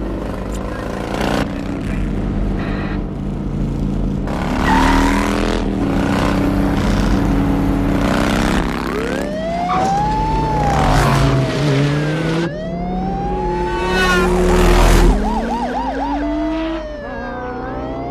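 Film soundtrack of a motorcycle chase: motorcycle engines running and revving, joined about nine seconds in by police sirens wailing, with a fast yelp about fifteen seconds in.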